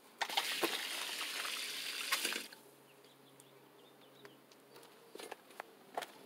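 Water rushing from an opened garden hose line as a steady hiss, starting abruptly and cutting off suddenly after about two seconds.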